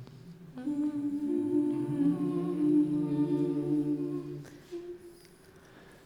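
Several voices humming a held chord without words for about four seconds, then stopping, with a brief faint hummed note just after.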